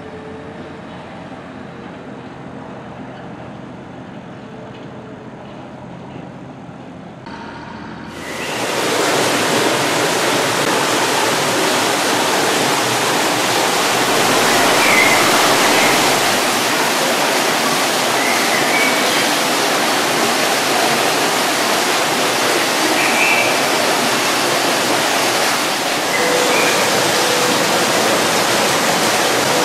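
A quieter outdoor background, then from about eight seconds in a steady, loud rushing of water, as heard inside an aquarium hall.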